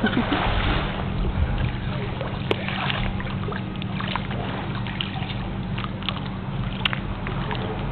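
Water sloshing and lapping in a small pool, with a few light drips and small splashes over a steady hiss.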